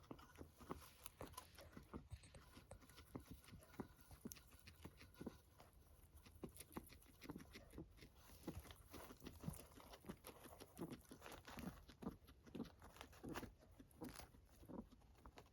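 Guinea pig's strange breathing: a faint, uneven run of small clicks and soft rasping puffs, a couple or more a second.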